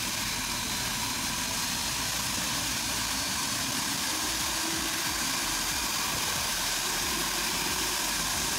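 CFM56-7B turbofan on a Boeing 737-800 running steadily at ground idle: an even rush of jet noise with a steady high whine over it.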